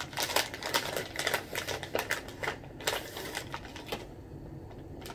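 Rapid clicks and rustles of packaging handled in a cardboard box, dense for about four seconds, then thinning to a few faint clicks.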